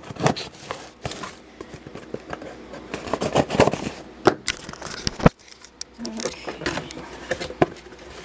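Cardboard USPS Priority Mail box being cut open with a knife and its flaps pulled back: irregular scraping, crackling and clicks of cardboard and tape. A sharp knock comes a little after five seconds in.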